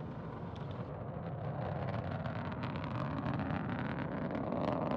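Soyuz-2.1a rocket's core stage and four strap-on boosters firing during the climb just after liftoff: a steady rumble with crackle that slowly grows louder.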